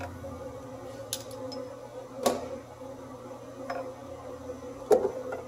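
A few sharp metal clicks and clinks from a ratchet, extension and spark plug socket at a spark plug well, over a steady background hum. The loudest clicks come about two seconds in and near the end.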